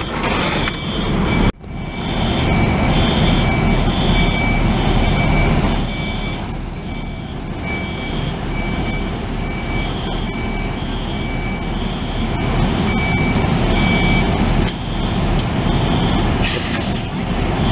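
Apartment building fire alarm sounding a high tone that pulses on and off again and again, so loud it leaves the ears ringing, over a steady low rumble.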